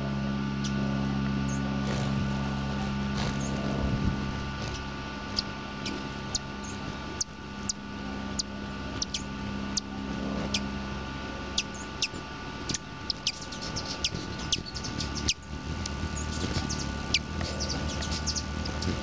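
Hummingbird chip calls: short, sharp, high-pitched chirps, scattered at first and coming thicker from about five seconds in, over a steady low hum that fades about halfway through.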